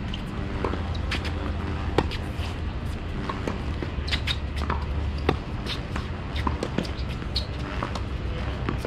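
Tennis rally on a hard court: a racket strikes the ball with a sharp pop about two seconds in, and fainter pops of the ball bouncing and being hit from the far end come every second or so, over a steady low rumble.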